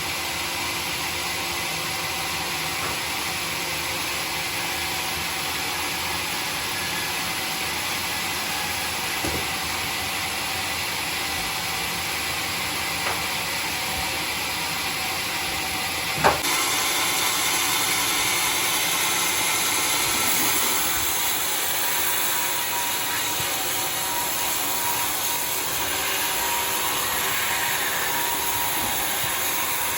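Sawmill running steadily with a loud, even hiss, broken by one sharp knock about sixteen seconds in, after which the sound gets a little louder and brighter.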